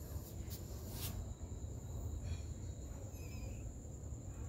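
Steady high insect drone, typical of crickets, over a low rumble. A kitten gives two faint, high mews, about two and three seconds in.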